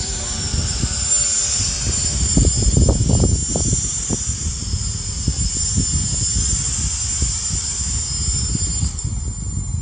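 Hubsan H216A X4 Desire Pro quadcopter's propellers giving a steady high-pitched whine as it flies low for a landing, over strong, gusty wind rumbling on the microphone.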